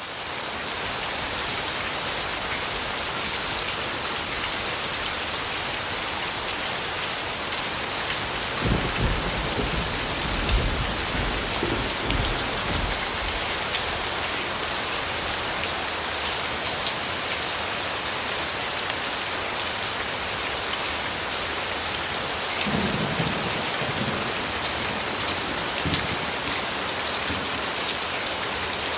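Steady heavy rain falling, an even hiss of drops on surfaces. Low rumbles of thunder come in twice, once about a third of the way through and again later on.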